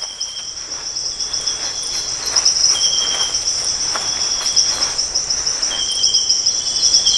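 Insects chirring: a steady, high, rapidly pulsing trill, with a second, lower trill that starts and stops several times.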